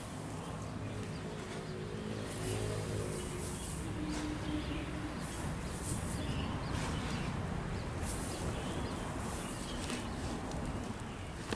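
A motor engine running steadily, with a low hum and a droning tone that fades about four seconds in. Short hissy rustles come and go over it.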